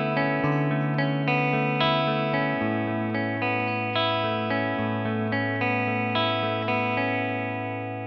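Electric guitar played with a clean tone through a Nux C-5RC 5.8 GHz wireless guitar system with its Cable Tone mode switched on. It picks a repeated arpeggiated riff over a held low note, a new note about every half second.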